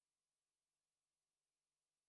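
Near silence: only a faint electronic hiss.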